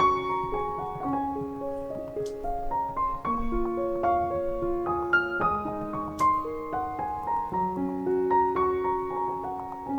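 Background piano music: a slow, gentle melody of held notes moving up and down.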